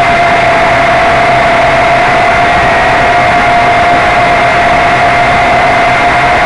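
Quadcopter drone's motors and propellers running steadily, heard loud and close through its own onboard camera: a steady whine over a dense rushing hiss.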